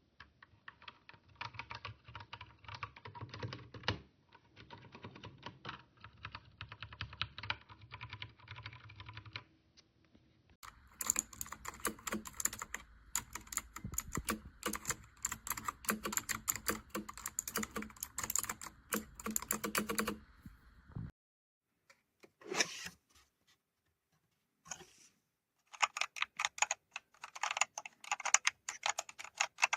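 Fast typing on a Dierya T68SE 60% mechanical keyboard with clicky blue switches, a dense stream of key clicks. It comes in three separate runs, broken by short pauses at about ten and twenty-one seconds in, with the middle run sounding brighter.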